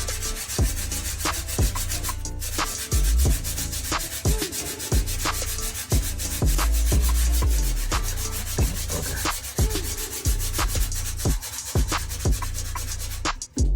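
Sandpaper rubbed back and forth by hand over a hardened Bondo filler patch on a bathtub, in quick, uneven strokes with occasional low thuds, feathering the patch's edge so no hard line is left.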